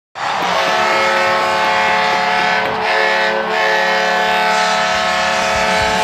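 Arena goal horn blaring: one long, loud blast made of several steady tones sounded together, starting abruptly and held without a break.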